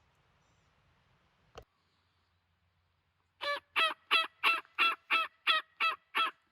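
A single click a little over a second in, then a run of nine turkey yelps, evenly spaced at about three a second.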